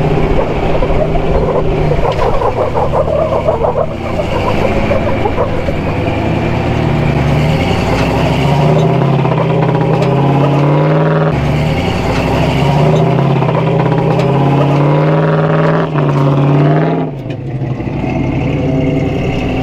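Vehicle engines labouring at low speed under load while towing up a steep rock climb. The revs rise and fall unevenly as the vehicles crawl and strain.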